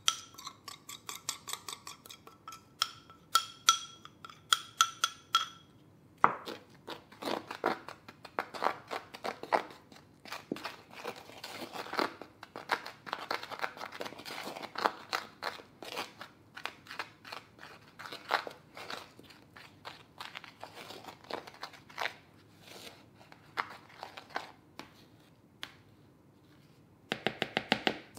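A metal fork clinks and scrapes against a small glass, with ringing tones, as the meringue-powder mix is scraped out. Then for about twenty seconds come rapid scraping and tapping as the fork stirs it into powdered sugar in a bowl to make icing. A quick burst of fast taps comes near the end.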